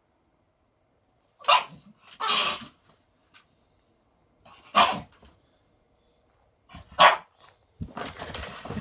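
A dog barking four times in short, sharp barks, the second a little longer, with pauses of a couple of seconds between them. Near the end, scraping and rustling.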